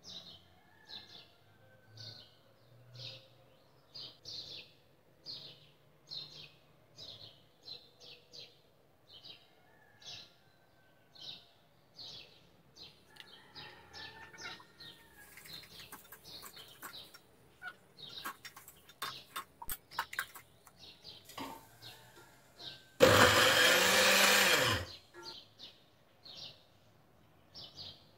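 A small electric food chopper runs once for about two seconds near the end, chopping raw beef mince with sliced onion, after a run of clicks and knocks as the bowl and lid are handled. A bird chirps over and over, about once a second, throughout.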